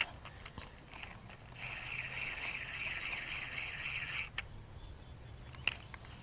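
Fishing reel being cranked in, a steady whir for nearly three seconds that stops suddenly, with a few light clicks before and after.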